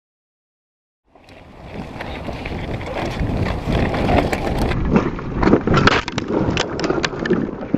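Silence for about a second, then wind rushing over a helmet camera's microphone and a downhill mountain bike's tyres rumbling and rattling over a rough gravel trail. From about five seconds in comes a string of sharp knocks and clatters as the rider crashes and the bike and camera hit the ground.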